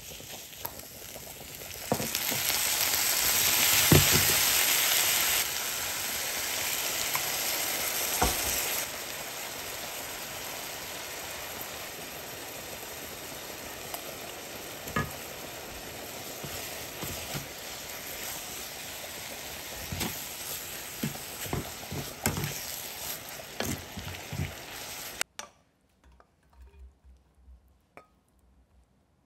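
Food sizzling in a hot frying pan while it is stirred, with occasional knocks of the utensil against the pan. The sizzle jumps louder about two seconds in and eases off in steps. It cuts off suddenly near the end, leaving a few faint clinks.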